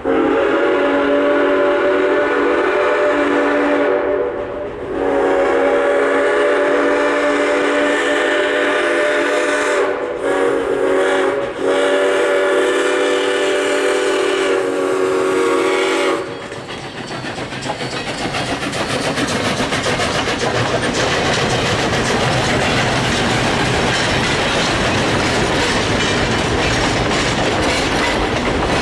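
Steam locomotive No. 7470's chime whistle blowing the grade-crossing signal: two long blasts, a short one, then a long one. After the whistle stops, about two-thirds of the way through, the train passes with a steady rush of running gear and the clickety-clack of passenger-car wheels over rail joints.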